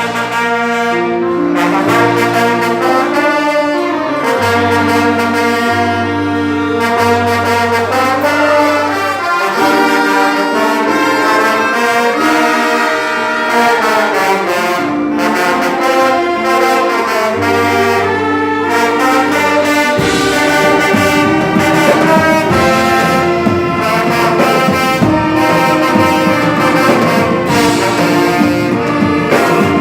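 A brass-led wind orchestra playing a piece, with trumpets and trombones over held bass notes. The sound grows fuller in the low register about two-thirds of the way through.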